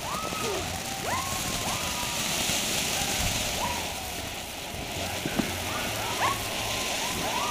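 Ground fountain firework spraying sparks with a steady hiss, over which come many short chirping whistles and a couple of sharp pops, the louder one about six seconds in.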